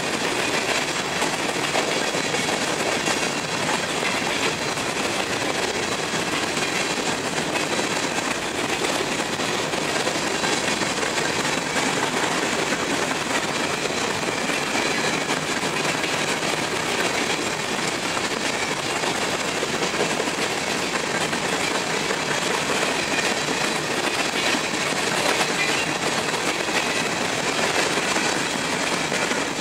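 Empty covered hopper cars of a freight train rolling past, their steel wheels and car bodies clattering steadily on the rails.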